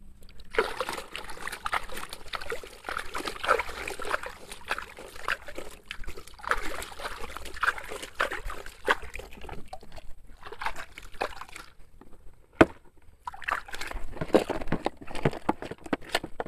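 Water sloshing and splashing unevenly as a plastic toy dump truck is washed clean of sand, with a short lull about three-quarters of the way through broken by a single sharp click.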